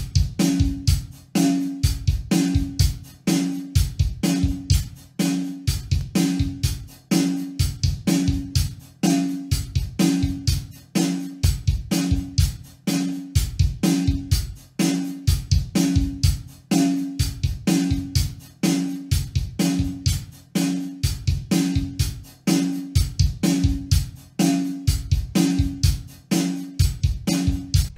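Recorded acoustic drum kit playing a steady groove of kick, snare and hi-hat. The kick drum runs through a Pultec-style tube EQ plugin, boosted for more beater smack, and the plugin is switched in and out during playback.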